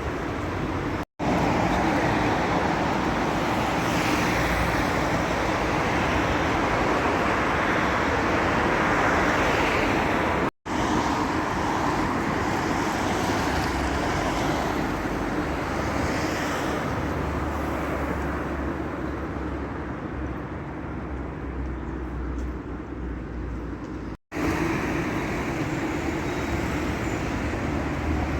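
City road traffic: a steady wash of passing cars and other vehicles, broken by three brief dropouts where one clip cuts to the next.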